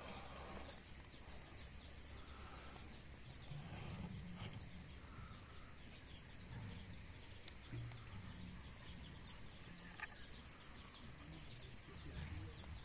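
Faint outdoor ambience: an uneven low rumble with a few faint bird chirps and a single sharp click about ten seconds in.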